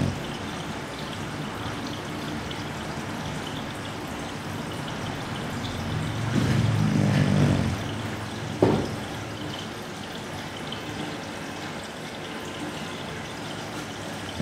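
A sleeping dog snoring: one long, low snore about six seconds in, over a steady hiss. A sharp click comes shortly after the snore.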